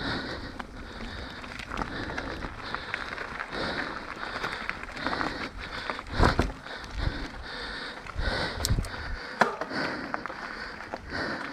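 Mountain bike riding fast down a dry dirt trail: tyres crunching over dirt and gravel and the bike rattling over bumps, with hard knocks about six seconds in and again near nine seconds. The rider's breathing pulses along about once a second.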